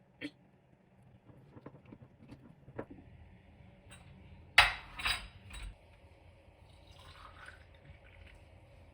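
Glassware and dishes being handled in a kitchen: scattered light clinks and taps, then a louder clatter of three knocks about halfway through.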